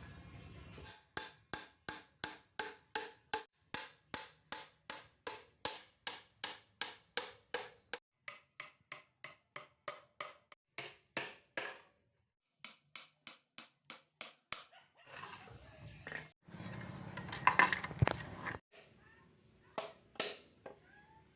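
Hammer driving nails into wood, about three ringing blows a second in a long run, then a shorter run after a brief pause. A louder, rough scraping noise comes later, followed by a few more blows.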